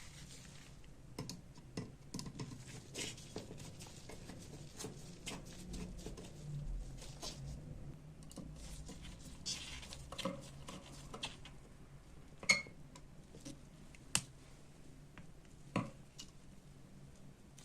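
Irregular light clinks, taps and scrapes of small metal parts being handled and fitted on the antique kitchen cutting machine, with a few sharper metal clinks in the second half.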